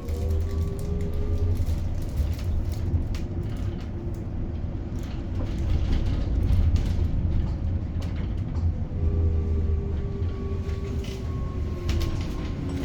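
Ride inside a 2021 Edison Motors SMART 093 electric bus: steady road rumble with the electric traction motor's whine, which fades early, comes back about three-quarters through and falls in pitch near the end as the bus slows. Occasional clicks and rattles over the rumble.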